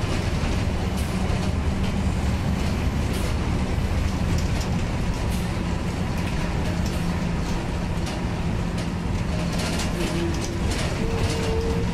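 Inside a Marcopolo Torino city bus under way: steady engine and road noise with a low hum and scattered rattles and clicks from the body.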